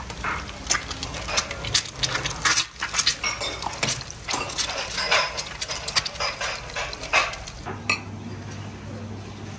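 Dishes and metal cutlery clinking and clattering in a quick, irregular run of sharp clinks, which thins out near the end as a low steady hum comes through.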